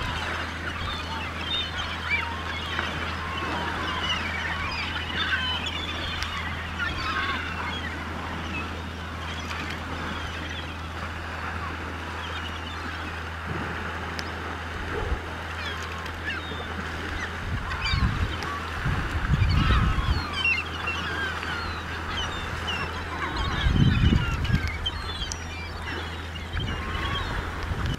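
A large flock of gulls calling nonstop, many short cries overlapping into a constant clamour over a steady low hum. A few louder low rushes of sound come about two-thirds of the way through and again near the end.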